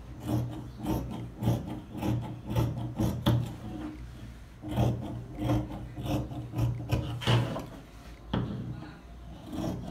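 Fabric scissors cutting through tricoline cotton on a tabletop: a series of crunchy snips, about one to two a second, with a short pause about four seconds in.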